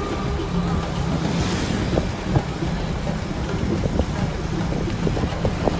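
Motorbike engine running at road speed, a steady hum under wind rushing across the microphone.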